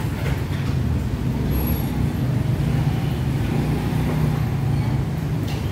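Steady low rumble of a running motor, even in level throughout, with a faint clatter above it.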